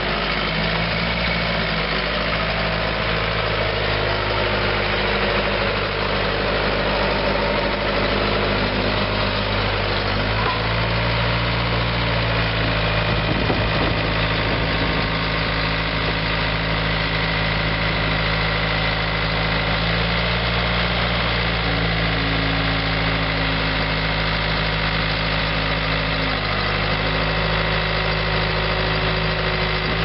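Case four-cylinder diesel engine of a 1996 Case 1845C skid steer running steadily. Its pitch shifts slightly a few times as the lift arms and bucket are worked.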